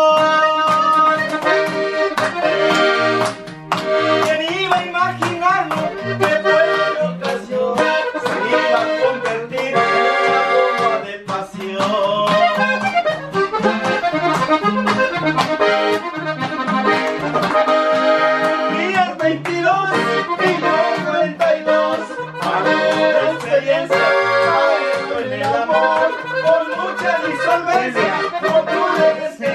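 A song played live on a diatonic button accordion and an acoustic guitar, with a man singing and hands clapping along.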